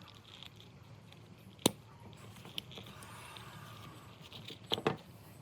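Small hard clicks and knocks, like parts or tools being handled: one sharp click about a second and a half in and a short cluster of knocks near the end, over a faint low steady hum.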